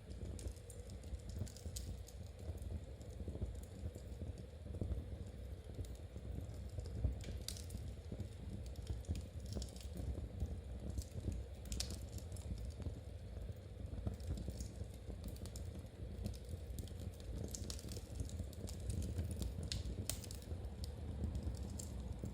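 Knitting needles clicking and tapping at an uneven pace as stitches are worked, over the low steady rumble and occasional crackle of a fireplace fire.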